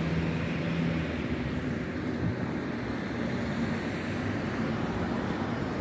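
Steady road noise with wind buffeting the microphone, and a faint low hum during the first second.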